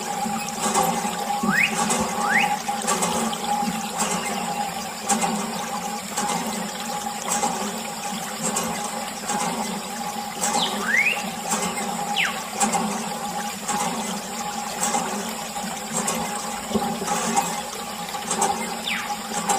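Thin stream of water from a plastic tube splashing steadily onto a muddy toy tractor and the wet ground beneath it. A few short squeaks that rise or fall in pitch come through now and then.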